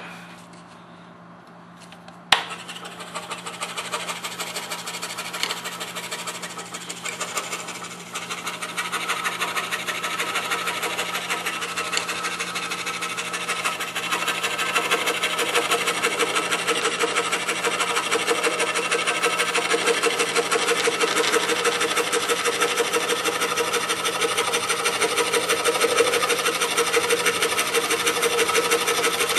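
DeWalt scroll saw starting up about two seconds in, then its blade stroking rapidly as it cuts a pattern through thin plywood: an even, fast rasping chatter that gets louder around eight seconds in.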